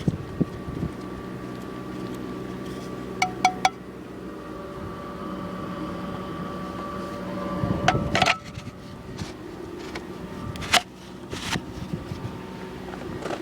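Steady motor hum with a few sharp clicks: three quick ones about three seconds in, and more around eight and eleven seconds.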